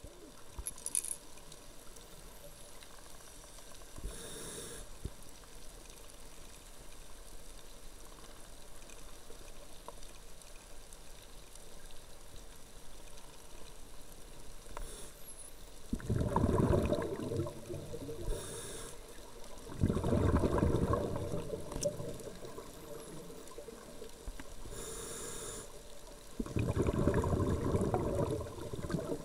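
Underwater water noise picked up by a camera swimming near the surface, with three loud rushes of water sound about two seconds each in the second half.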